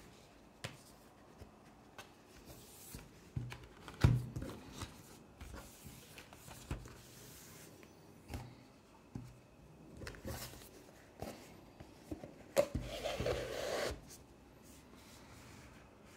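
Hands handling a cardboard Blu-ray box set on a table: scattered taps and knocks of card against card and tabletop, with a brief scraping rustle of cardboard sliding against cardboard about 13 seconds in.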